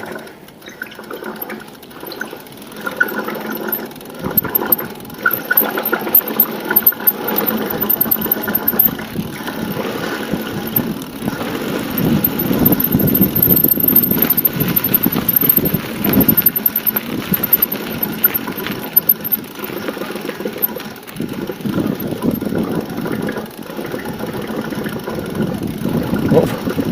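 Wind buffeting the camera's microphone while riding a bicycle, with tyre rumble and rattles from the bike over the path, rising and falling with speed.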